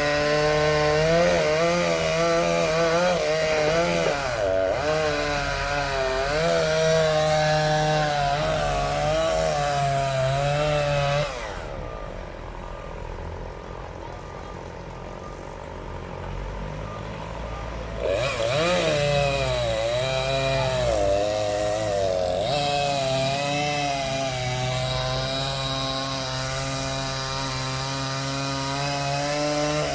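Chainsaw cutting through tree wood, its engine pitch rising and falling under load. About eleven seconds in, the saw drops to a much quieter level for several seconds, then comes back up and cuts on.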